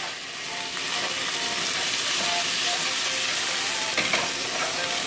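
Chicken feet frying in hot oil in a wok, a steady sizzle, with a wooden spatula stirring them and knocking faintly against the pan about four seconds in.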